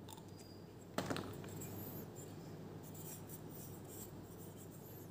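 Faint handling noise from greasing a foam-dart blaster's plunger tube with silicone grease: a sharp click about a second in, then light rubbing and scratching.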